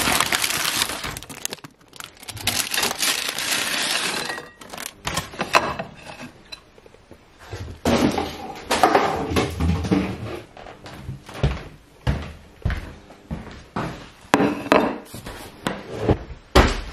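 Paper takeaway packaging rustling for the first few seconds, then irregular knocks, thuds and scrapes as the food and its box are handled.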